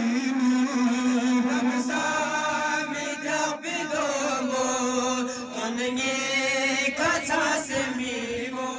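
Men's voices chanting a Shia mourning lament (nauha) in long sung lines over a steady low held note.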